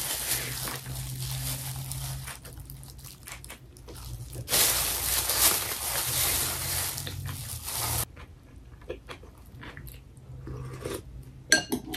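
Close-miked eating: biting into and chewing bibimbap, with crunchy chewing noises and small clicks. There is a louder stretch of rustling, crunching noise midway.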